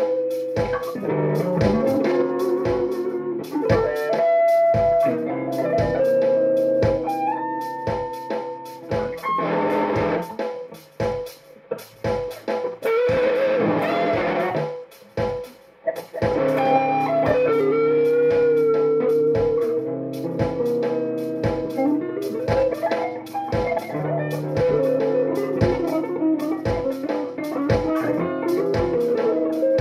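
Electric guitar playing a blues lead with string bends and vibrato, over a backing track with a steady beat. The playing thins out for a few seconds in the middle.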